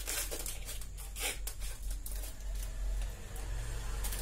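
Aluminium foil crinkling and crackling as wooden ice cream sticks are poked through it into a popsicle mould, in irregular short crackles over a steady low hum.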